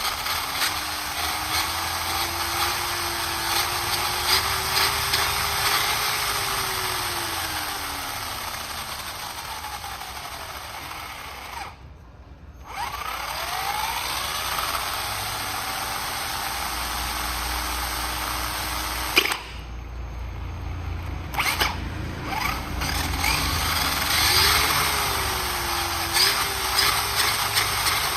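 Power tool motor running with its pitch slowly rising and falling, broken by two short gaps.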